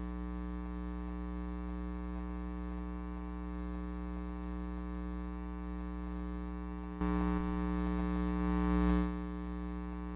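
Steady electrical mains hum with many overtones, coming through a live show's microphone and sound system, a sign of the faulty mic setup. It grows louder and hissier for about two seconds past the middle, then settles back.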